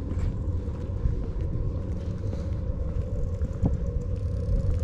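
Steady low rumble with a steady mid-pitched hum, like running machinery, and a few faint clicks.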